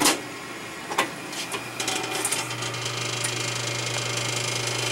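Plastic lid and seat of an Incinolet electric incinerating toilet being handled on its loose stainless top: a sharp knock at the start, another about a second in, and a few lighter clicks after, over a steady low hum.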